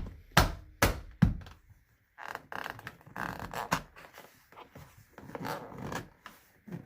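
Four sharp thunks about 0.4 s apart as a hand knocks a plastic trim clip home into its hole in the car's dashboard, then quieter scraping and handling of plastic trim.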